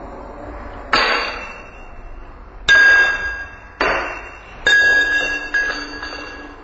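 Thrown quarters striking glasses and the wooden tabletop: five sharp clinks over about five seconds, coming closer together, several leaving a bright ringing tone that fades.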